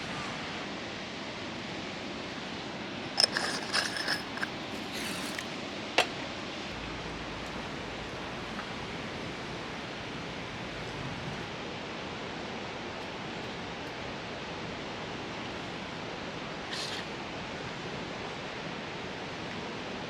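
A few light metallic clinks and clatters about three to six seconds in, ending in one sharp click, over a steady rushing background noise.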